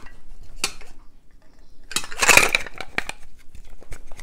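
Ice and liquid clattering as they tip from a glass into a metal cocktail shaker tin, with a rush of sound about two seconds in. Short clinks follow as the glass is pressed into the tin to seal the Boston shaker before shaking.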